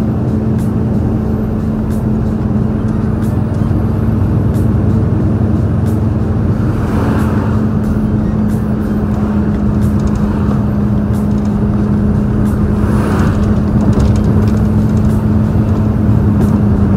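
Large truck's diesel engine pulling hard uphill: a steady drone with a strong low hum, heard from the cab through a slightly open window. Two short hisses come about seven and thirteen seconds in.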